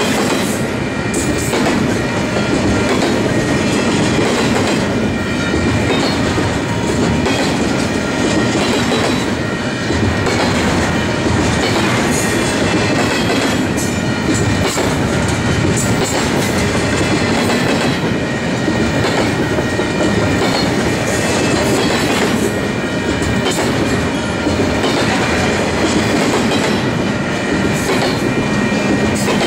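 Double-stack container cars of a heavy intermodal freight train rolling past at speed: a loud, steady rumble of steel wheels on rail, broken by scattered clicks from the wheels, with a few faint, steady high-pitched tones over it.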